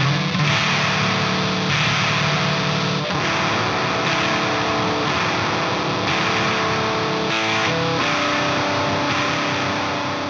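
Electric guitar played through a Death By Audio Fuzz War fuzz pedal, with heavily fuzzed, sustained low chords that change every second or so and a short fast run of notes about seven seconds in.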